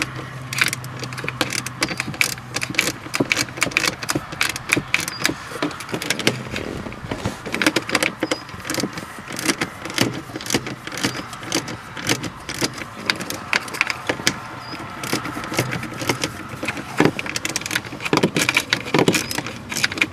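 Mini socket ratchet clicking in quick, uneven runs as an 8 mm screw is backed out of a dashboard vacuum actuator, with small metal-on-plastic handling clatter.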